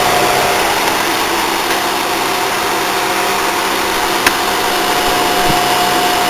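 Small Speedie window air conditioner running on cool: steady rush of fan air with a constant mechanical hum from the compressor and fan motor. A single sharp click about four seconds in.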